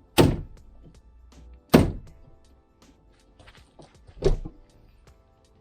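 Three sharp thunks, a second or two apart, as the plastic door trim moulding of a Toyota Land Cruiser 120 is knocked onto its new panel clips and snaps into place. Background music plays underneath.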